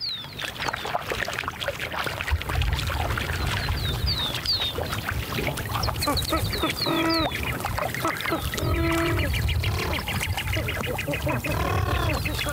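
Wild birds calling: short high chirps that slide down in pitch, and loud honking calls about halfway through and again near the end, over a low steady rumble.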